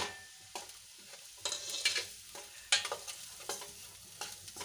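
A spoon stirring and scraping chopped onions and ground spices around a stainless steel kadai as they fry in oil, in five or six uneven strokes. A sharp metal clink right at the start as the steel spice plate knocks the pan's rim.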